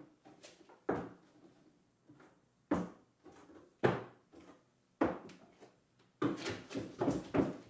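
Footsteps on a curved plywood-and-timber ramp as a person walks up it under his full weight to test its strength: separate knocks about a second apart, then a quicker run of knocks near the end.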